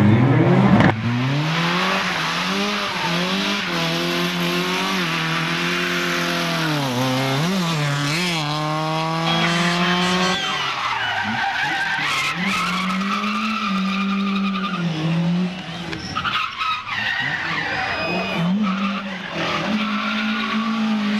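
Racing car engine revving hard through the gears, its pitch repeatedly climbing and dropping, with a quick run of rising steps about halfway through, over a noisy hiss.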